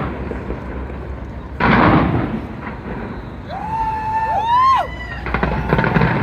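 New Year's Eve fireworks over a crowd: a loud burst about one and a half seconds in, over steady crowd noise. Near four seconds comes a high held tone that rises at its end.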